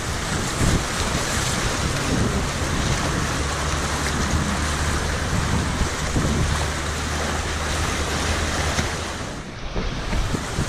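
Whitewater rushing around a kayak running river rapids, with wind rumbling on the microphone. The sound dips briefly about nine and a half seconds in.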